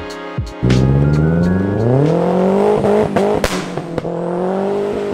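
Mercedes 190 with a swapped M111 2.3 four-cylinder and a large Holset turbo, accelerating hard away. The engine note starts suddenly, rises steeply, breaks briefly about three seconds in, then holds steady.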